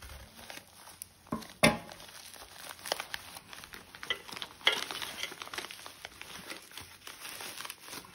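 Tightly wrapped packaging being cut open with scissors and pulled apart: irregular crinkling and tearing of the wrap with scattered snips, the sharpest snap about a second and a half in.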